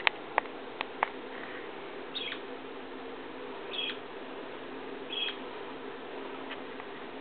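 Lineolated parakeet giving three short, high chirps about a second and a half apart, after a few sharp clicks in the first second, over a faint steady hum.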